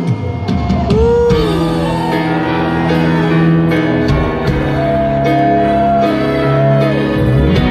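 Live rock band playing a slow ballad, recorded from the crowd through a phone: held low chords under a lead melody whose notes bend up and down, with one long sustained note in the second half.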